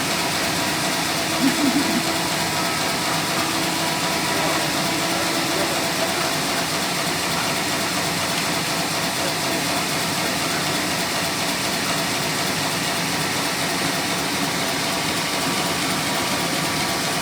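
A homemade sawmill's machinery running steadily with a constant mechanical hum.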